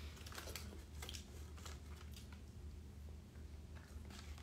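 Faint, scattered crunches and rustles of a person eating tortilla chips from a bowl of nachos, over a steady low hum.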